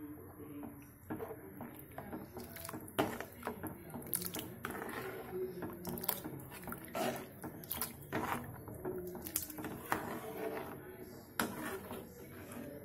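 Steel ladle stirring watery tomato sambar in a kadai, with irregular scrapes and knocks of the ladle against the pan and the liquid sloshing.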